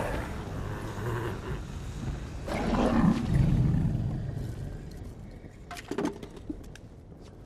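Roaring from a film dragon: one roar right at the start and a louder one about two and a half seconds in, fading away afterwards, with a few sharp clicks near the end.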